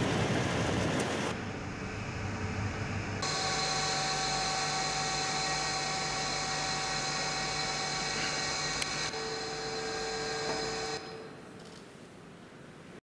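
Steady machine hum made of several held whining tones, with another tone joining about nine seconds in. It grows quieter near the end and then cuts off.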